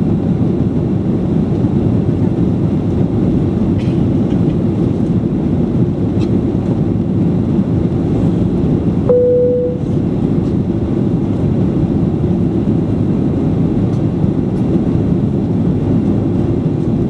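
Steady cabin noise of a Boeing 737-800 in climb, from its CFM56-7B engines and airflow, heavy in the low range. About nine seconds in, a single short cabin chime sounds, the signal that the fasten seatbelt sign has been switched off.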